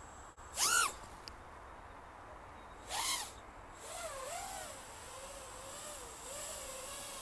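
Emax Hawk Apex 3.5-inch FPV quad's four brushless motors (Emax ECO II 2004, 3000KV) and propellers: two short throttle punches about a second and three seconds in, each a whine that rises and falls in pitch, then a steadier whine that wavers gently in pitch as it flies from about four seconds on.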